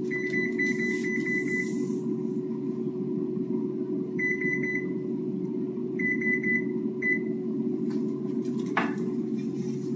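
Electronic timer beeping in rapid pulses: a long run of beeps at the start, then three short bursts, over a steady low hum. A single click comes near the end.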